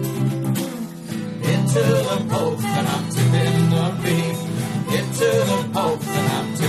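Folk song played on a strummed acoustic guitar with a fiddle playing along.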